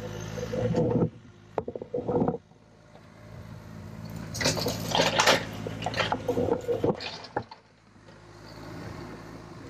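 John Deere 35G mini excavator's diesel engine running with a steady low hum, with several loud, harsh bursts of noise over it. The engine sound drops out about a second in and again near the end.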